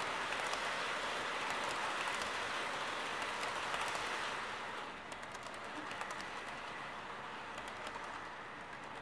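Model railway flat wagons of a rolling-road train running past on the track: a steady rolling rumble with rapid clicks from the wheels at rail joints, fading after about four or five seconds as the end of the train moves away.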